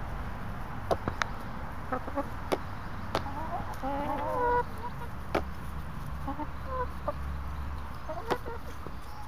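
Domestic hens clucking, with a short run of warbling calls about four seconds in and a few more near the end. Scattered sharp clicks sound throughout.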